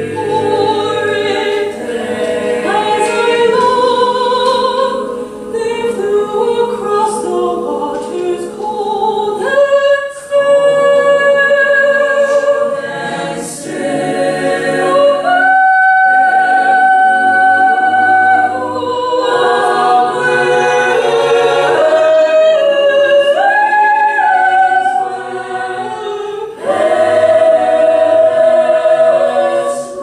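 Mixed choir singing a cappella, sustained chords with a soprano soloist's line floating above them. The voices hold long notes, with short breaks between phrases and a long high note about halfway through.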